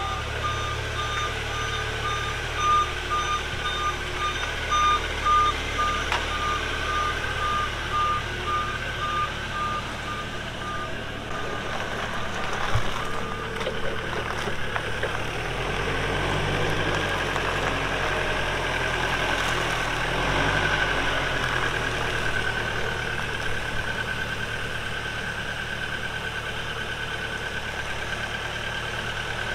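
Propane-powered Hyster Fortis 50 forklift running and being driven, its backup alarm beeping steadily for about the first eleven seconds. Later the engine runs on with a steady whine.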